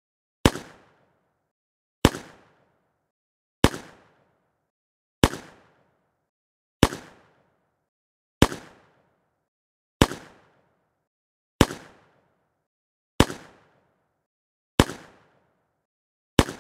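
Handgun shot, repeated eleven times at an even pace of about one every 1.6 seconds. Each is a sharp crack with a short fading tail, and there is dead silence between shots.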